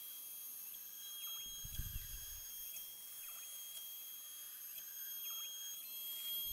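Shapeoko 3XL CNC router's spindle whining steadily at speed as it makes the final cut through maple, with faint swishes about once a second and a brief low rumble about two seconds in.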